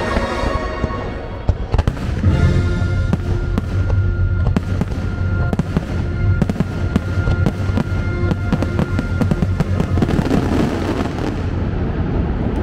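Fireworks bursting in rapid succession, many sharp cracks and bangs over a low rumble, with the fireworks show's music soundtrack playing underneath.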